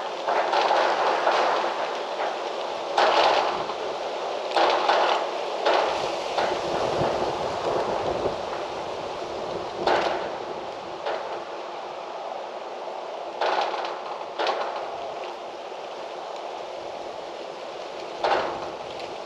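Gusty wind rustling through trees, swelling into louder rushes every few seconds and easing off between them, with a quieter spell in the last few seconds.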